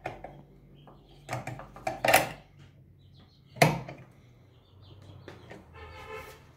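Steel F-clamp being worked by hand on a wooden joint: its screw and sliding T-handle clink and knock against metal and wood several times, the sharpest knock about three and a half seconds in. Near the end comes a short squeak with a clear pitch.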